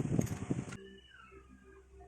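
Clattering and scraping of hands working on a rice cooker's parts, which cuts off abruptly under a second in. A faint background follows, with a brief high chirp.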